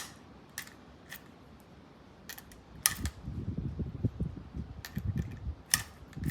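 Sharp metallic clicks, about seven of them spaced irregularly, as .38 Special cartridges are pushed through the loading gate into the tube magazine of a Rossi R92 lever-action rifle. Wind buffets the microphone from about halfway in.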